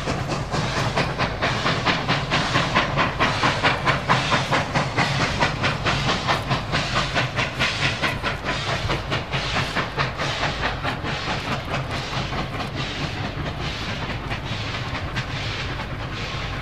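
Steam locomotive chuffing steadily with a hiss of steam, about three beats a second, easing a little in the second half.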